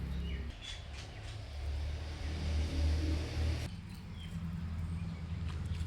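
A motor vehicle's engine running steadily, with a few short bird chirps over it.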